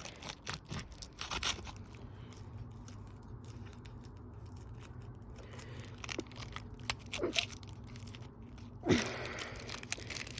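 Damaged washing machine running with a faint steady hum, under scattered sharp clicks and crackling, and a louder rustling scrape near the end.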